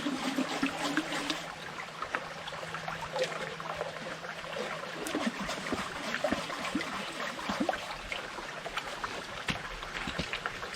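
A small forest stream trickling and gurgling steadily over stones, with many small splashes and bubbling blips.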